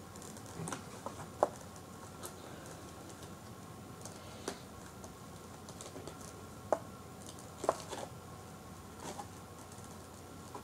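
Handling noise from a cardboard toy box as its packing tape is picked at: a few scattered light taps, scrapes and sharp clicks, spaced a second or more apart, over a faint steady background hum.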